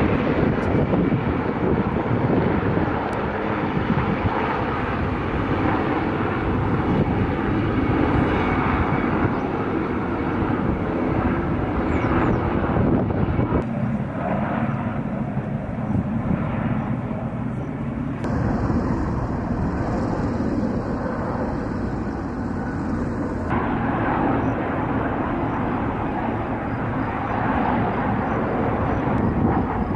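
IAR 330 Puma military helicopters flying past: the steady noise of rotors and turbine engines, changing abruptly a few times.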